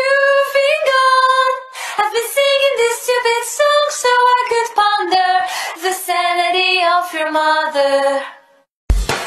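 A woman's voice singing a melody alone, without accompaniment, breaking off about eight seconds in. A different piece of music with a low bass cuts in just before the end.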